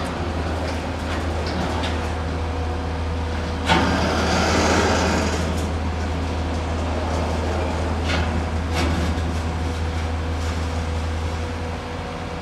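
Truck-mounted mobile crane's diesel engine running steadily under load with a low drone. A sharp clank a little under four seconds in is followed by a hiss for about two seconds, and two fainter knocks come later.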